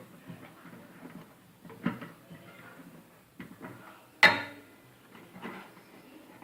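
Scattered clicks and knocks of parts being handled inside an opened microwave oven while the magnetron is worked loose, with one sharp, louder knock about four seconds in.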